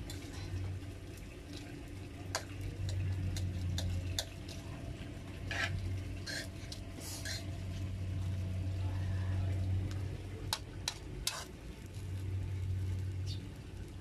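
Metal spoon stirring fried rice with egg in a metal pan, clinking and scraping against the pan at irregular moments, over a steady low hum.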